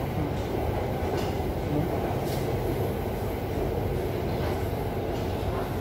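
Bangkok MRT Blue Line train running on its elevated track, heard from inside the carriage as a steady low running noise.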